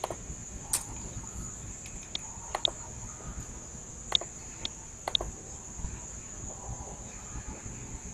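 Computer mouse clicking, about seven short sharp clicks spread unevenly over several seconds, over a steady high-pitched whine.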